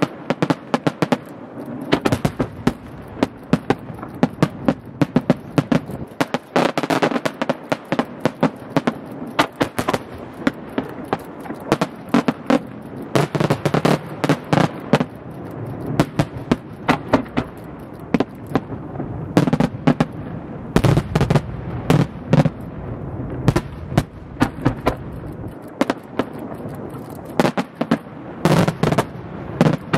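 Aerial fireworks bursting in quick succession: a dense, continuous crackling of exploding stars, broken by heavier booms from shells every few seconds.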